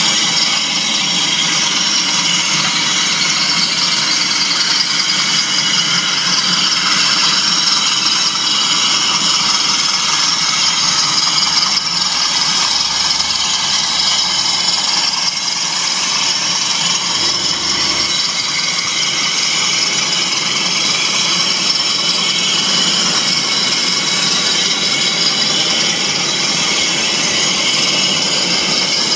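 OO gauge model train running: a class 20 diesel locomotive model hauling a rake of HAA merry-go-round hopper wagons, a steady whirring and rattling of motor and wheels on track.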